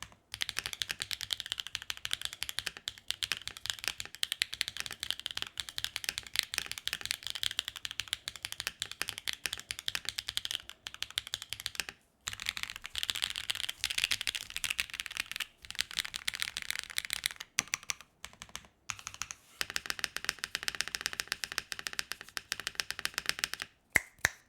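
Fast typing on a mechanical keyboard fitted with Wingtree BM10 tactile switches on a carbon plate: a rapid, continuous run of keystroke clacks broken by a few short pauses, with one louder click at the very end.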